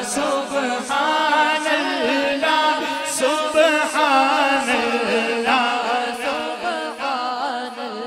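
Male voice singing a naat unaccompanied into a microphone, a melismatic line with sliding, ornamented pitch, over a steady low drone.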